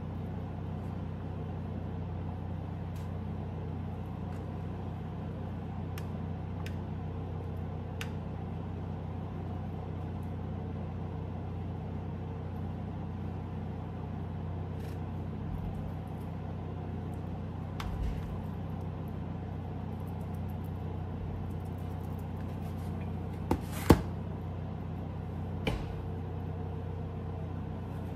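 Steady low hum of kitchen background, with faint scattered clicks and light knocks of utensils against dishes while chicken is served; a sharper double knock comes late on.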